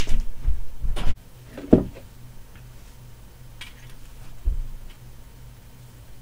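Several loud knocks and thumps in the first two seconds and one more thump about four and a half seconds in, as someone gets up and moves away from the desk. A faint steady low hum runs underneath.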